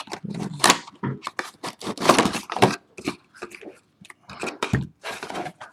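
Plastic wrapping on sealed trading-card boxes being torn and crinkled open, in a series of irregular short rips and crackles.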